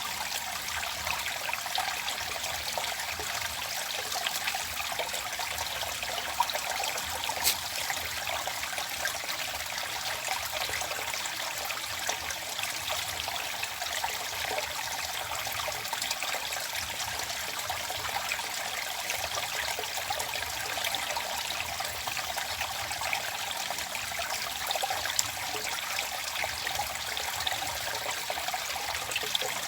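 Running water trickling and splashing steadily, like a small stream, with little splashes scattered through.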